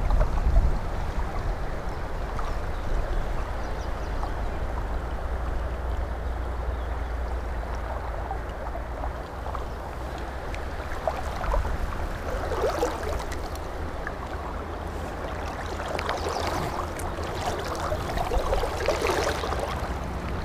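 Steady rush of a fast-flowing river over a riffle, with a low rumble underneath; the water sound turns rougher and more splashy in patches in the second half.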